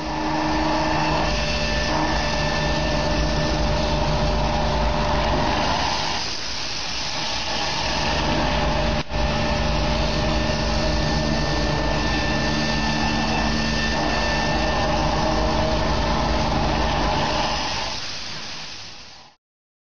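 High-pressure liquid nitrogen lance jetting deposits out of heat exchanger tubes: a loud, steady hiss over a running machine with a steady hum of several tones. A brief break comes about nine seconds in, and the sound fades out near the end.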